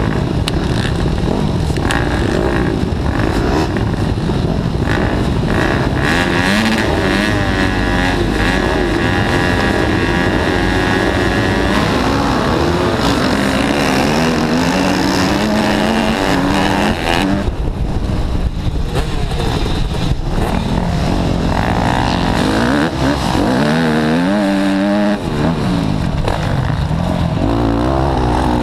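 Motocross bike engines, led by the camera bike's own, running hard and revving. The pitch climbs and falls with the throttle, with sharp drops in engine note about two-thirds of the way through and again near the end, each followed by a rising rev.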